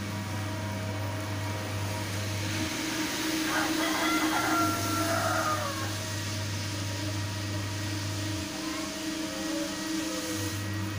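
Single-disc rotary floor scrubber running, its brush churning through a soapy, foam-covered shag carpet: a steady motor hum over a wet scrubbing noise, briefly louder near the middle.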